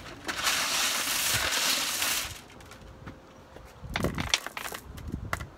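Small glass pebbles poured out in a rushing rattle for about two seconds, then a few sharp clinks about four seconds in as more are handled.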